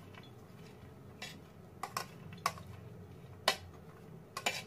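A steel spoon scraping and clinking against a plate while sweeping chopped French beans off it into a bowl: about half a dozen sharp, short clinks at uneven intervals.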